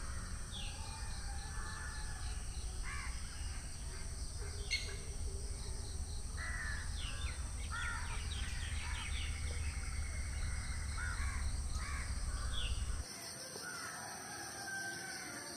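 Birds calling repeatedly in the background, many short overlapping calls, over a low steady rumble that cuts off abruptly about thirteen seconds in.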